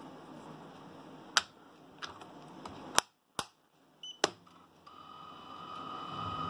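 Sharp plastic clicks, five of them over about three seconds, as the clamps and wind-protector lid of a Revo RFS-98 fusion splicer are opened by hand. Near the end a steady, high electronic tone comes on and holds.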